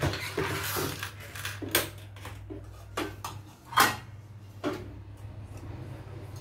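A cabinet door scraping open, then stainless steel pans knocking against each other and a metal pan rack as they are lifted out, in several sharp clanks with the loudest a little past the middle.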